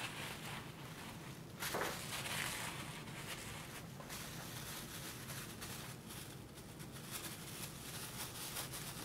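Hands mixing chopped spinach leaves with grated cheese and seasoning in a bowl: soft, irregular rustling, with a couple of louder rustles about two seconds in.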